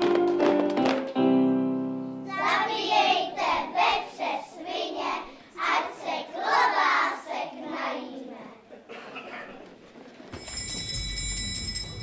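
A keyboard plays a tune that stops about two seconds in, and children's voices follow. Near the end a steady low hum comes in.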